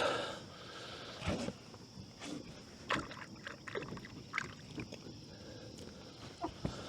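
Scattered light knocks and clicks of gear being handled on a small fishing boat, at irregular intervals over faint wind and water.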